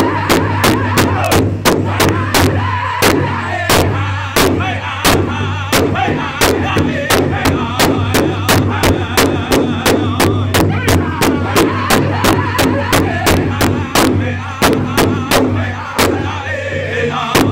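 Northern-style powwow drum group singing a fancy dance contest song: several men's voices singing together over a large hide drum struck in unison in a steady, fast beat of about three strokes a second.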